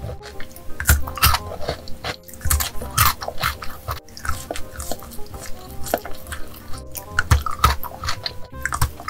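Close-miked ASMR eating of chocolate bars: sharp bites and crisp crunches with chewing and mouth clicks, several a second, over soft background music.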